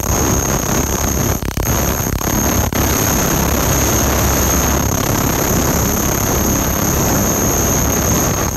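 Laser cleaner ablating grime off a steel press platen: a loud, steady hiss with a constant high-pitched whine, briefly dipping about one and a half seconds in.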